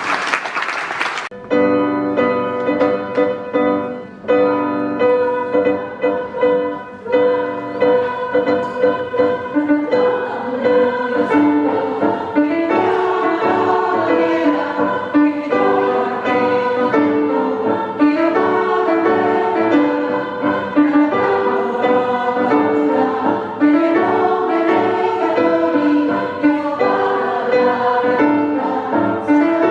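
Women's choir singing with piano accompaniment. About a second in, a short rush of noise gives way to the music.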